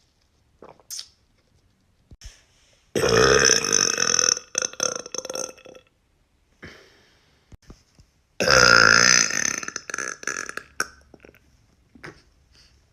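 A woman's two long, deep burps, each lasting about two and a half to three seconds, the second starting about five seconds after the first.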